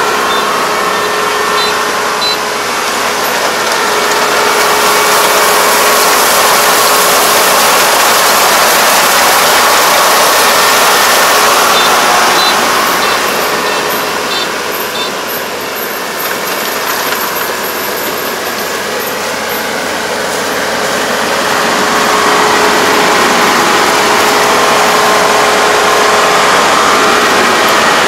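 Four-row combine harvester running under load while cutting lodged rice, its engine and threshing machinery making a loud, steady drone with a constant hum. It grows fainter for a few seconds in the middle, then comes back up to full level.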